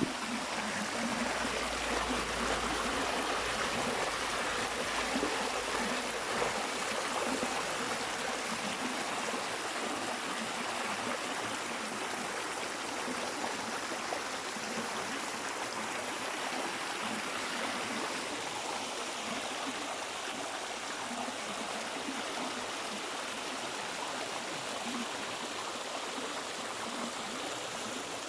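Rushing water of a mountain stream, a steady even wash of noise, with a low rumble in the first few seconds.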